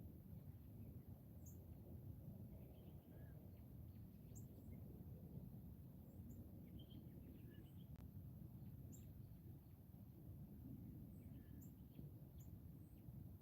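Faint, scattered bird chirps over a steady low background rumble of outdoor ambience.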